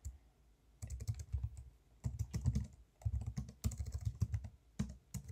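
Computer keyboard typing: several short runs of quick keystrokes separated by brief pauses.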